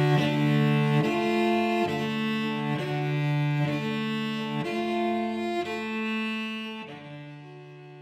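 Solo cello played with the bow: sustained notes changing about once a second, then a long held note near the end that grows quieter.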